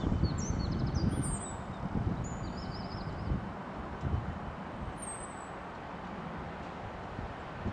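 Gusty wind on the microphone, with small birds chirping in short high calls over the first few seconds and again about five seconds in. A train is approaching in the distance.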